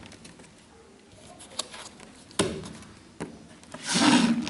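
Hands handling a drawer-style cardboard shoebox: a light knock, a click a moment later, then a short, louder rubbing scrape of cardboard near the end as a drawer is worked in the box.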